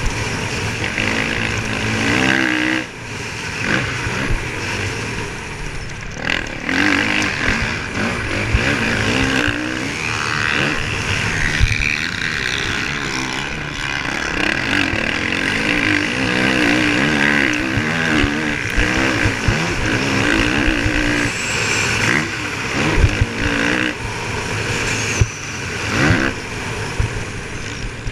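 Motocross dirt bike engine repeatedly revving up and dropping back as it is ridden hard around a dirt track, heard from on the bike with heavy wind noise on the microphone. Scattered sharp knocks come through as the bike hits bumps and lands.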